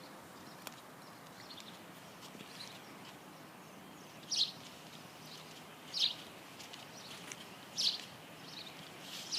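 Birds chirping outdoors: short high chirps every second or two, three of them louder, over a faint steady background hiss.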